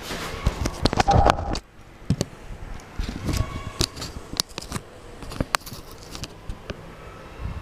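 A run of sharp clicks, knocks and scrapes, heaviest in the first second and a half and then sparser over a low steady hum.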